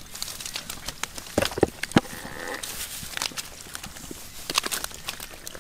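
Hands grabbing slippery fish in shallow wet mud: irregular wet slaps, squelches and crackles of dry rice straw, with the loudest slaps about one and a half to two seconds in.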